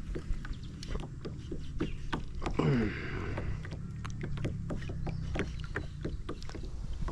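Plastic sit-on-top kayak on the water: small irregular knocks and splashes of water against the hull over a low steady rumble, with one brief falling whir about two and a half seconds in.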